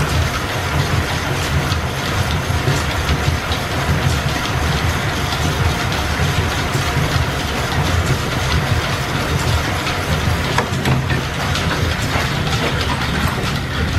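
Machine-shop machinery driven by steam-powered line shafting, running steadily: a continuous low rumble with mechanical noise above it.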